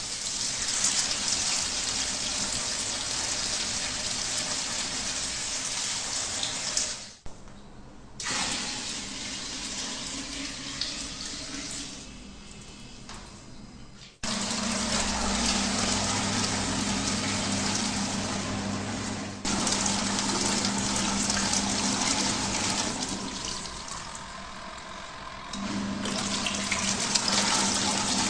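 Water running into a mini washing machine's tub, with a steady motor hum joining about halfway through. The sound breaks off abruptly and starts again several times.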